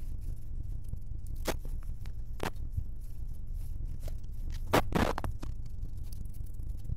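Tree branches and roadside growth cracking and scraping against the body of a Scania K410 double-decker bus on a narrow village lane: a few sharp cracks, then a louder, longer scrape about five seconds in. Underneath is the steady low rumble of the bus heard from inside.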